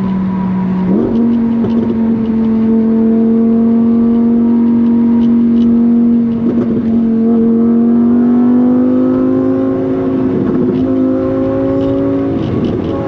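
Lamborghini Huracán Performante Spyder's naturally aspirated V10 running at moderate revs under steady throttle. Its note steps up sharply in pitch about a second in, then climbs slowly and evenly as the car gathers speed.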